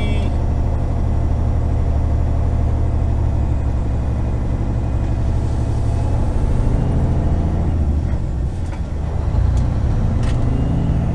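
Semi truck's diesel engine running, heard from inside the cab as the truck moves slowly at low speed, a steady low drone. Its note changes and the level dips briefly about eight seconds in.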